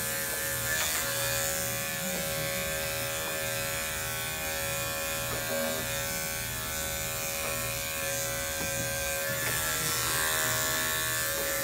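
Andis five-speed corded dog clipper running with a steady buzz as it shaves a dog's hind leg and rear.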